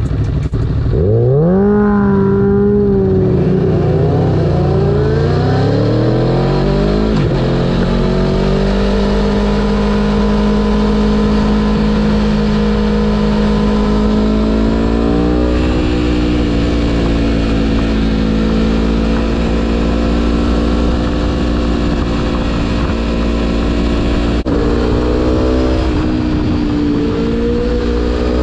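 Aprilia Tuono V4 Factory 1100's V4 engine accelerating hard about a second in, its pitch climbing and stepping through several gear changes. It then holds a steady cruise, pulls higher again about halfway through, and drops back briefly before climbing near the end.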